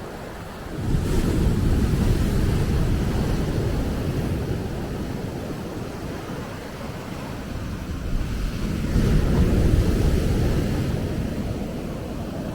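Ocean waves breaking and washing up a beach, a rushing noise that surges twice, about a second in and again around nine seconds in, with wind rumbling on the microphone.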